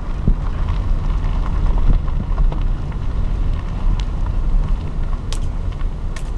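Steady low rumble of a slowly moving car, heard from inside, with wind buffeting the microphone and a couple of faint clicks near the end.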